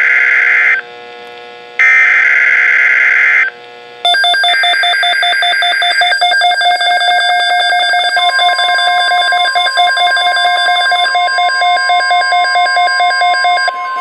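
Emergency Alert System SAME header from NOAA Weather Radio: three bursts of screechy data tones about a second apart. From about four seconds in, a rapidly pulsing electronic alarm of several tones joins them. About eight seconds in, the steady 1050 Hz weather-radio alert tone starts and holds.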